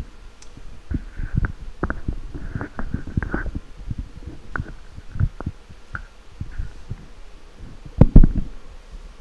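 Handling noise from a handheld microphone carried by a walking person: irregular low bumps and rubbing, with a loud knock about eight seconds in.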